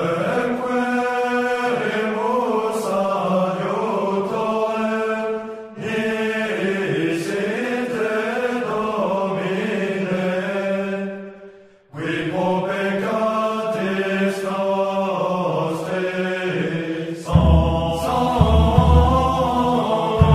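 A slow hymn sung by many voices in unison, with long held notes. It breaks off abruptly twice. Deep low thuds come in about three seconds before the end.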